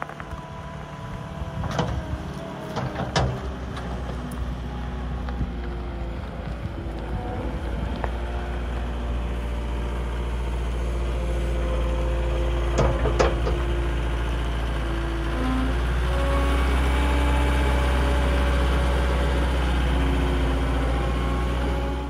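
Caterpillar 907M compact wheel loader's diesel engine running as the machine drives closer, growing steadily louder. A few sharp knocks come about two to three seconds in and again about thirteen seconds in.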